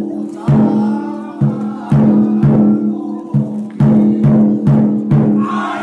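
Japanese taiko drum beaten in a rhythm of about two strikes a second, each stroke ringing briefly with a clear low pitch.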